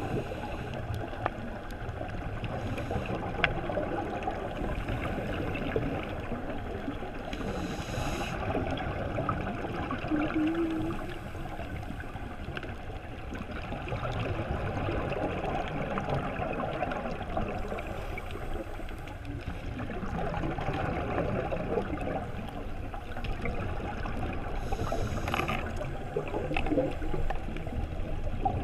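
Underwater sound heard through a dive camera's housing: a steady, muffled rush of water noise, with short gurgling bursts of a scuba diver's exhaled bubbles every several seconds.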